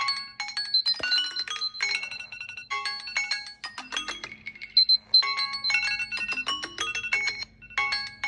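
Smartphone alarm tone going off: quick runs of bright, chiming notes in short repeating melodic phrases.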